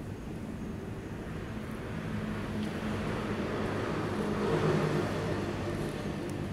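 Steady background traffic hum, with a vehicle engine passing that grows louder from about three seconds in and eases off near the end.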